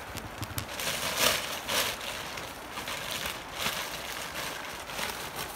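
Intermittent rustling and crackling, with a few louder swishes, as a pink nylon sack is handled among dry leaves and bamboo.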